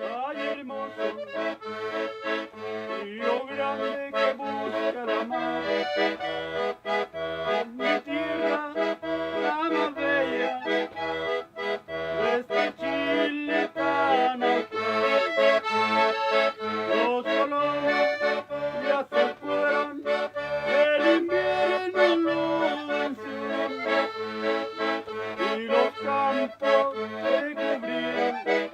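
Background music: a melodic tune over a steady bass beat.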